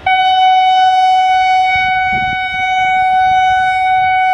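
Electric locomotive's horn sounding one long, steady blast at a single unchanging pitch, starting abruptly, as the train approaches, over a faint low rumble of the train.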